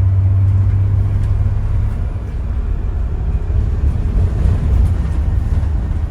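Low engine drone and road rumble from inside a moving road vehicle. The steady drone gives way about two seconds in to an uneven rumble, and the sound cuts off abruptly at the end.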